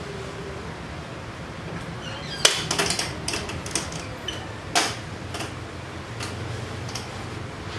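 A run of sharp clicks and knocks beginning about two and a half seconds in, the two loudest a couple of seconds apart, over a steady low hum.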